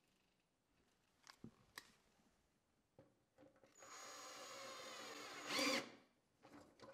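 A few sharp clicks as the drill is handled, then a Ryobi cordless drill runs steadily for about two seconds, driving a screw eye into the underside of a wooden shelf. It gets louder just before it stops.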